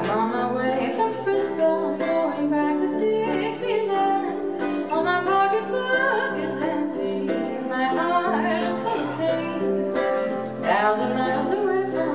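Live ukulele and archtop acoustic guitar playing an old-time country accompaniment, with a wordless, gliding melody line over it.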